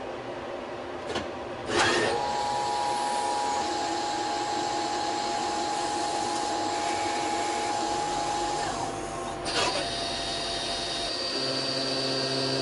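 Citizen Cincom L12 VII Swiss-type CNC lathe machining: a steady whine of spindles and cutting tools, with short sharp clacks about one and two seconds in and again about nine and a half seconds in. The pitch of the whine changes as one operation gives way to the next.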